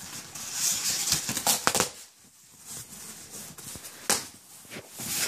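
A cardboard shipping box being opened and its packaging handled, with rustling, crackling and sharp clicks, busiest in the first two seconds and again about four seconds in.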